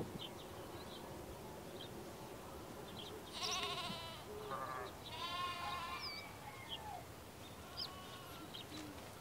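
A farm animal bleating, two long wavering bleats about three and a half and five seconds in with a shorter one between them, and small birds chirping now and then.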